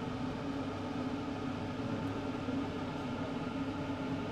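Malpua batter deep-frying in hot oil in a small iron kadai: a steady sizzle over a constant low hum.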